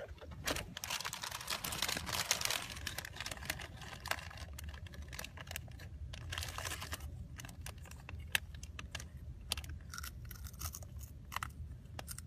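Crinkling of a foil snack bag in a toddler's hand: irregular crackles and crunches over a low steady hum inside a car.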